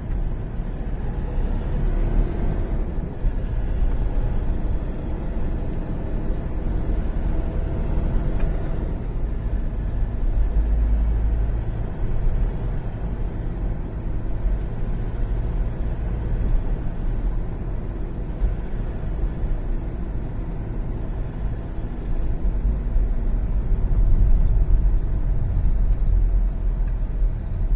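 Motor vehicle driving along a road: a steady low rumble of engine and road noise.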